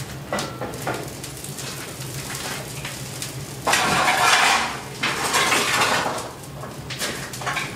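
Steel coal shovel scraping into a heap of coal on steel floor plates while stoking a coal-fired boiler furnace, with light clinks first and two long, loud scrapes about four and five seconds in. A steady low hum runs underneath.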